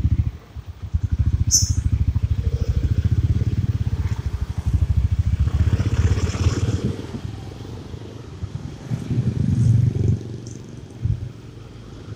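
Motorcycle engine running in slow traffic, with a rapid, pulsing exhaust beat. It is loud for the first seven seconds or so, then quieter, swelling briefly again around ten seconds in.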